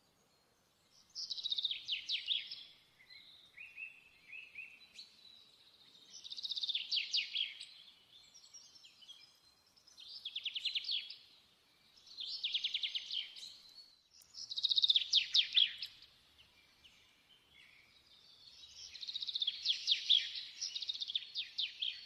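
A caged songbird singing in about six separate phrases, each a second or two of fast, evenly repeated trilled notes, with short pauses between them.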